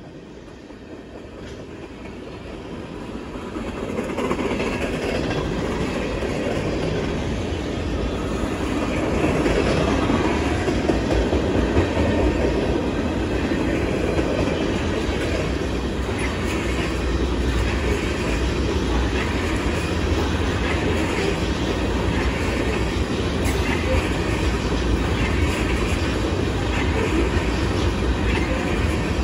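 Freight train's tank cars and covered hopper cars rolling past at close range, wheels running on the rails; it grows louder over the first few seconds, then holds steady.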